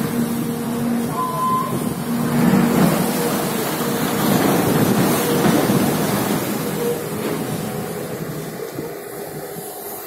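SANY hydraulic excavator's diesel engine running steadily, with a short higher tone about a second in. It grows gradually quieter toward the end.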